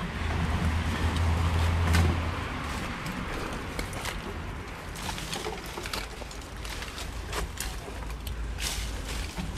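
Footsteps and scrambling on a steep slope through dry leaf litter and brush, with scattered crunches and rustles. A low steady hum runs through the first two seconds or so.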